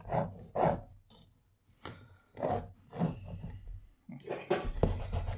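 Pencil sketching on watercolour paper: a few short scratchy strokes, then denser, continuous scratching from about four seconds in.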